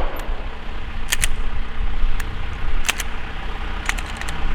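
Engine idling steadily, with a scattering of short sharp clicks or cracks over it.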